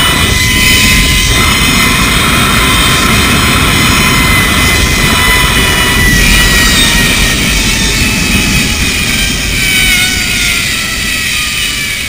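Zipline trolley pulley rolling along the steel cable with a steady whine, over heavy wind rush on the microphone; the whine falls in pitch over the last few seconds as the trolley slows.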